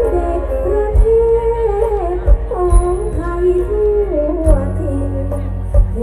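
Live band performing a song on an outdoor stage, heard from far back in the audience: a sung melody over bass and sharp drum hits.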